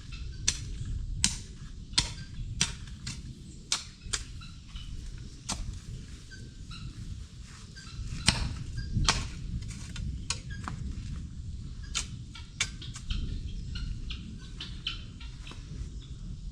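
Irregular sharp clicks and taps, at times several a second, over a steady low rumble.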